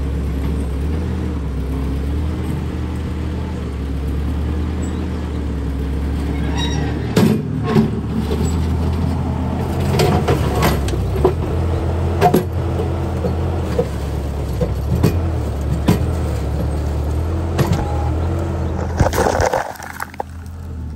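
Ford 8N tractor's four-cylinder engine running steadily as the tractor moves over rough ground, with scattered sharp knocks and clanks from about seven seconds in. A short rush of noise comes near the end, and then the sound drops away.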